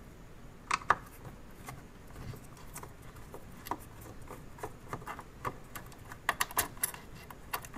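Small sharp clicks and taps of a screwdriver working the mounting screws of a tape deck's drive mechanism, with a sharp pair about a second in and a quick run of clicks near the end.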